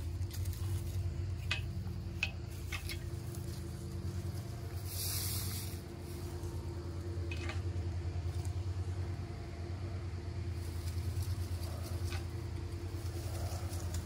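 Small engine of a mini dirt bike idling steadily with a low, even hum. A few light rustles of leafy branches being handled come through over it.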